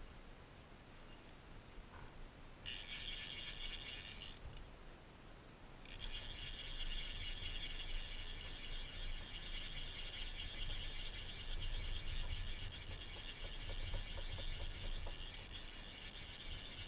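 Fly reel's click-and-pawl drag buzzing as a hooked carp pulls line off the spool: a short run about three seconds in, then a longer steady run from about six seconds on.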